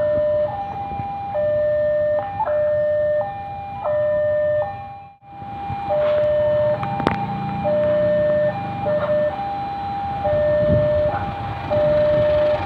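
Railway level-crossing alarm sounding its two alternating tones, a lower and a higher note, each held for just under a second, warning of an approaching train. The sound briefly drops out about five seconds in, and a low rumble builds under the alarm from about halfway.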